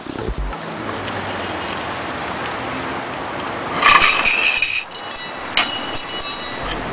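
Steady outdoor background noise, with glasses clinking and ringing about four seconds in as drinks are set down on a table, followed by a few lighter clinks.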